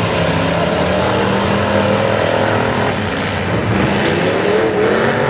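Several demolition derby pickup trucks' engines running and revving at once, their pitches rising and falling over one another.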